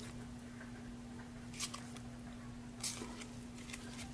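Trading cards handled by gloved hands: two short rustles about a second apart as cards are slid through the hand and one is laid down, over a steady low hum.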